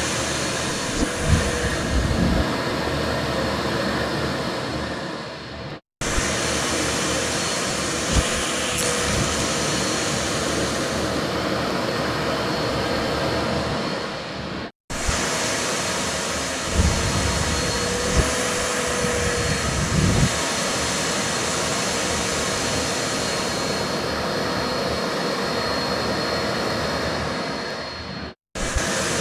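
Vacuum cleaner running steadily with a faint high whine, with a few low thumps as clothes are sucked in. The sound cuts out abruptly for an instant three times.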